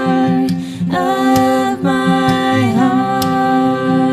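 Soft acoustic ballad: a singer holds long wordless notes, sliding down to a new pitch twice, over quiet acoustic guitar accompaniment.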